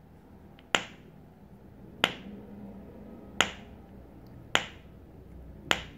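A rainbow silicone snap-grip fidget toy squeezed in the hand, popping with a sharp snap five times, about one snap every second or so.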